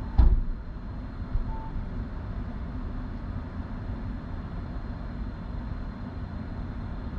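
Steady low rumble inside a stationary car. A sharp knock about a fifth of a second in, the loudest sound, and a softer knock about a second later. A short beep about a second and a half in.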